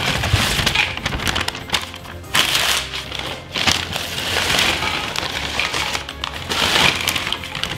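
Crispy french fries poured from a paper bag onto a stainless-steel tray: a dense crackly rattle with paper rustling, over background music.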